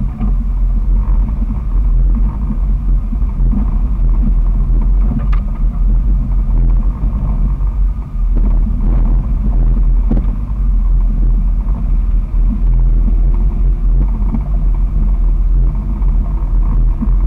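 2001 Jeep Wrangler TJ's 4.0-litre straight-six running loud through a muffler-back-deleted exhaust as it drives along the trail, a deep steady rumble. A few short sharp knocks come about five and ten seconds in.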